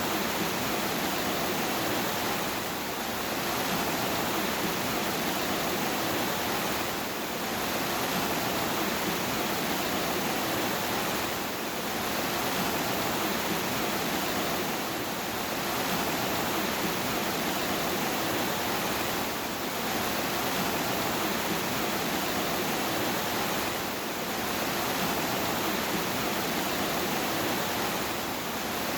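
Steady, dense rain hiss that dips slightly about every four seconds.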